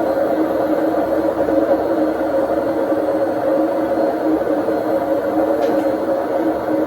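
Indesit IWD61450 washing machine running its service-mode test cycle: a steady mechanical hum with a few held tones, no change in pitch or level.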